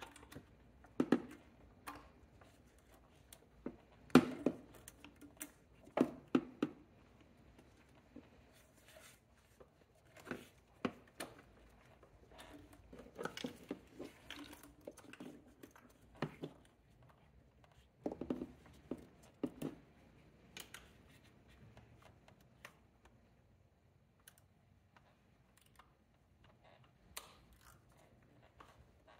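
Socket wrench clicking and knocking in scattered short bursts as the intake manifold bolts are tightened down to torque spec, with a few sharper knocks of the tool against the engine.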